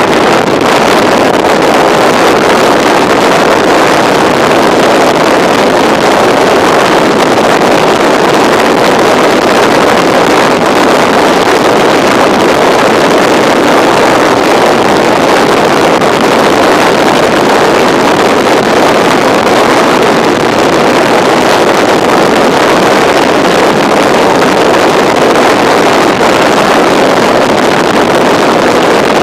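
Steady wind roar on the microphone of a moving BMW F650 motorcycle, with the bike's engine running under it at an even speed.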